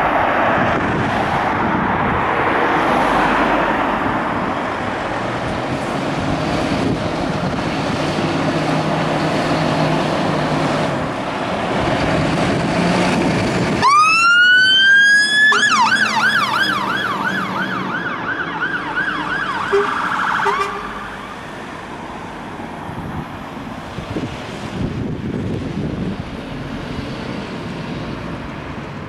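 Fire engines' diesel engines running as they pull out, then an electronic siren starts about halfway through with one steep rising wail. It switches to a fast yelp, about two sweeps a second, for about five seconds, then cuts off; the engine noise fades as the vehicles drive away.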